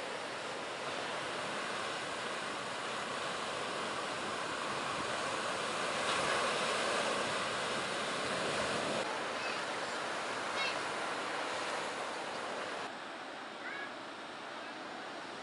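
Ocean surf at a beach break: waves breaking and whitewater rushing in a steady noise. The sound changes abruptly twice, at about nine and thirteen seconds in, and a few faint short high chirps are heard near the middle and near the end.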